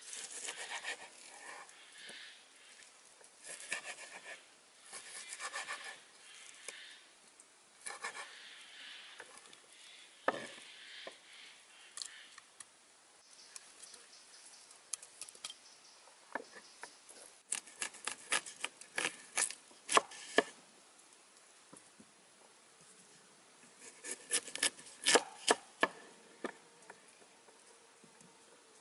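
A large knife cutting food on a wooden cutting board. For the first several seconds there are soft slicing and scraping strokes, and later two bursts of sharp taps and clicks of the blade on the board.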